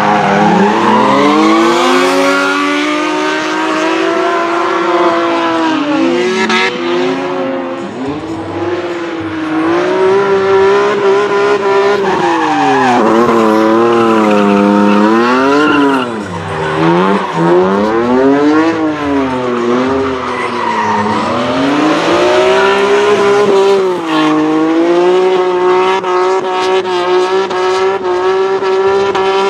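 BMW E30 drift cars' engines revving hard, their pitch swinging up and down over and over as the throttle is worked, held high for long stretches, with tyres squealing as the cars slide sideways.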